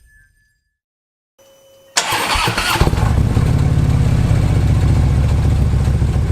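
Harley-Davidson Touring V-twin with Vance & Hines Monster Oval slip-on mufflers (no True Dual crossover) being started: the starter cranks about two seconds in, the engine catches within a second and settles into a loud, steady idle with an even low exhaust pulse.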